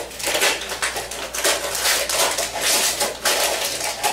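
Gift wrapping paper and tissue paper crinkling and tearing as a present is unwrapped by hand, in a continuous run of uneven rustles and crackles.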